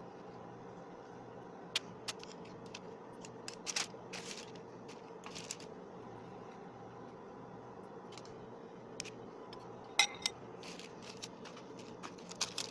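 Faint scattered scrapes and small clicks of cookie dough being scooped from a steel mixing bowl and set on a parchment-lined baking tray, with one sharper metallic clink about ten seconds in. A steady low hum of room tone runs underneath.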